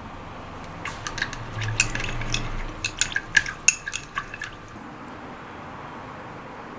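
Wooden chopsticks clinking against a small glazed ceramic dish while stirring wasabi into a dipping sauce: a quick, irregular run of light clinks that begins about a second in and stops after about three and a half seconds.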